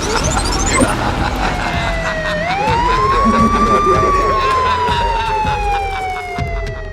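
Siren sound effect wailing: a single tone that falls, swoops up about two and a half seconds in, then slides slowly down again, over a rapid clatter of clicks in the first half.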